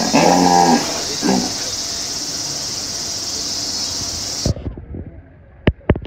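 Hippopotamus calling from the pool: a deep, drawn-out honk in the first second and a short one just after, over a steady high hiss. The sound cuts off abruptly at about four and a half seconds, and a few sharp clicks follow.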